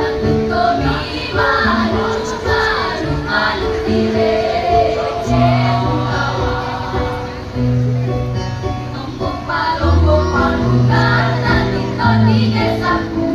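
A junior high school choir singing in unison, with an instrumental accompaniment that holds long low notes beneath the voices.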